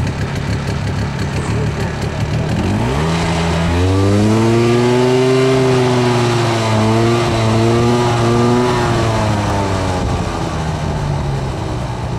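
Snowmobile engine revving up about three seconds in and holding a high, steady note for several seconds as the sled climbs the slope, then easing back to a lower note.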